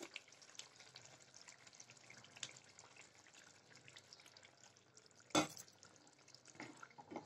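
Faint liquid sounds and small ticks of a thick masala gravy cooking in a pan as cream is poured in, with one sharp knock about five seconds in.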